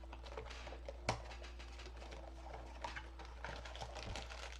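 Mystery-mini packaging being handled: faint rustling and light ticks, with one sharper click about a second in, over a steady low hum.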